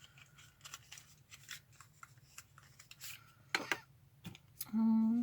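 Faint clicks and rubbing as a lipstick tube and its packaging are handled, with a sharper click a little past halfway. Near the end a woman gives a short hummed sound.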